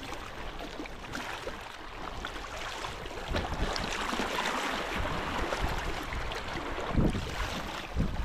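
Wind on the microphone over water sloshing around a small fishing boat, with a few low bumps.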